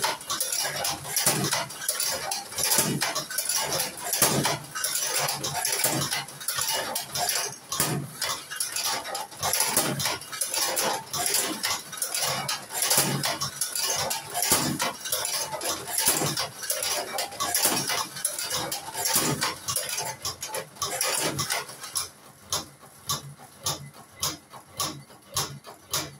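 Cigarette rolling machine working, with continuous metallic clicking and clattering. Near the end the clicks settle into an even beat of about two a second.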